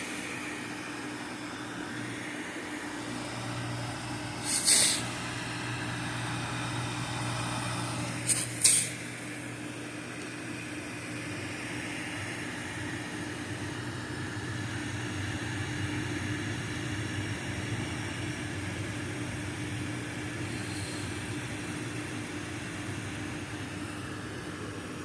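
iMac cooling fan running at full speed, a steady whir with a low hum underneath. A few sharp clicks come about five seconds in and twice more a little after eight seconds.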